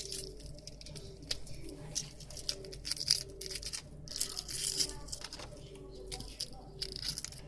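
Plastic bag rustling and crinkling in irregular bursts with small clicks and knocks, as onions are handled and taken out of it.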